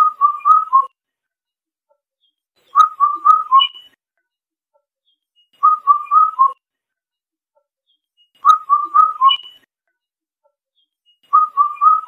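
Indian cuckoo calling its four-note whistled phrase, the last note lower, repeated about every three seconds.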